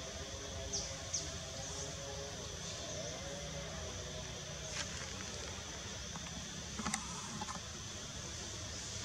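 Outdoor ambience: a steady high insect drone over a low rumble, with a few short chirps in the first two seconds and two sharp clicks in the second half.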